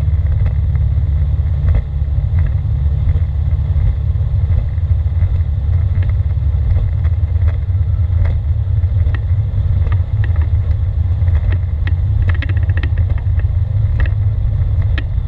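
Czech SportCruiser light aircraft's Rotax 912 engine and propeller running at low power on the ground, heard from inside the cockpit as a steady low drone, with scattered light clicks and rattles.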